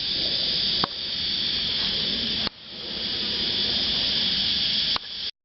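Steady high hiss of recording noise, the same hiss that runs under the narration. It dips sharply and swells back up about a second in and again about halfway through, with a brief dropout near the end.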